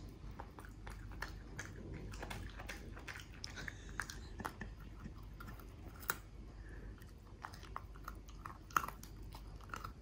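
A dachshund crunching and chewing a piece of raw carrot: quick, irregular crisp crunches, a sharper one near the end.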